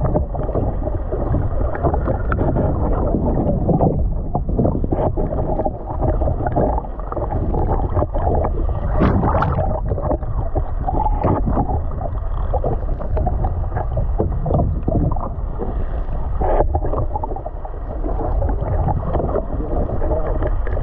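Boat at sea: a steady low rumble of engine and water, with wind on the microphone and scattered knocks and splashes.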